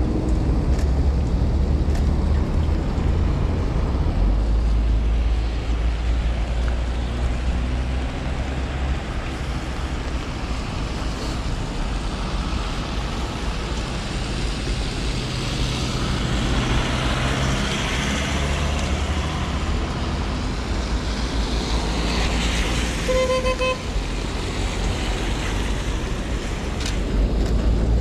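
Cars passing on a wet road with tyre hiss over a steady low rumble. A car horn gives one short toot near the end.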